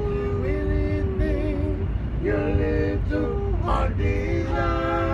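Voices singing a cappella in harmony, holding long notes with a gap of a second or so in the middle, over the steady low rumble of a moving subway train.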